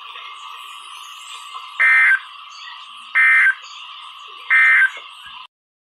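Three short bursts of EAS end-of-message data tones (the SAME 'NNNN' warble), about a second and a half apart, over steady hiss from a NOAA Weather Radio broadcast. The hiss cuts off suddenly near the end.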